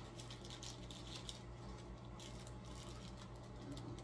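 Faint, irregular crinkling and clicking of a small clear plastic packet being handled and opened, over a steady low hum.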